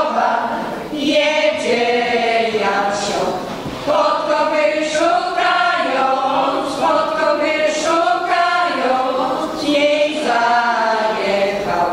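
A small women's folk choir singing unaccompanied, several voices together in long held phrases with brief breaths between them.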